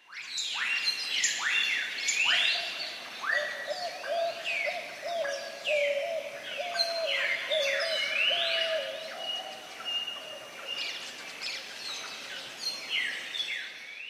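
Many birds calling at once: overlapping chirps and quick whistled glides, rising and falling, with a lower warbling call running through the middle.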